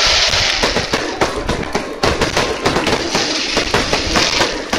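Aerial fireworks going off in quick succession: many sharp bangs and crackles over a continuous crackling din.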